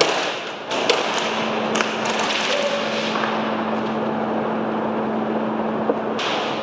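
A few sharp clicks and knocks, the first three about a second apart and one more near the end, over a steady rushing noise and a low steady hum that stops shortly before the end.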